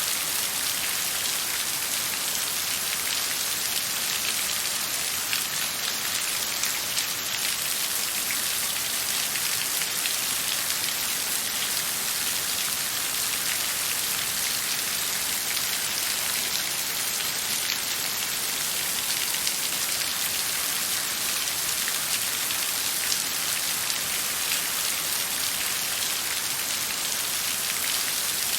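Steady rain falling, an even hiss made of many fine drop ticks with no pauses or surges.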